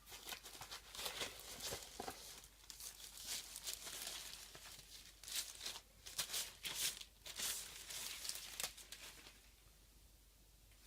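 Packaging crinkling and rustling as it is handled, in irregular bursts that stop near the end.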